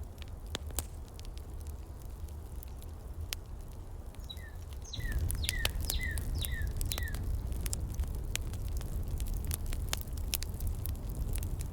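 Heater ambience: scattered sharp crackles over a low steady rumble, which grows louder about five seconds in. A bird chirps about six times in quick succession midway, each a short falling note.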